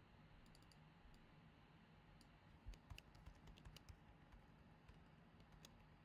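Faint, scattered clicks of a computer keyboard and mouse in short irregular runs, busiest around the middle.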